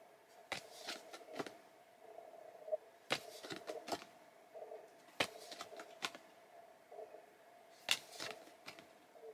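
Pokémon trading cards being handled and flipped through, giving irregular sharp flicks and snaps as the cards slide over one another, over a faint steady hum.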